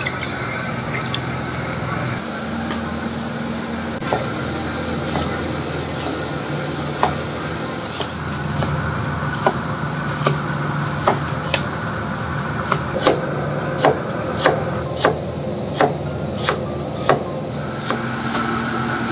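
Cleaver slicing a fresh bamboo shoot on a wooden chopping board: single knocks of the blade on the board, sparse at first, then about one or two a second in the second half. A steady hum runs underneath.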